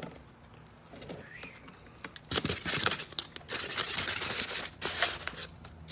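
Packaging being handled, crinkling and rustling in quick crackly bursts that start about two seconds in.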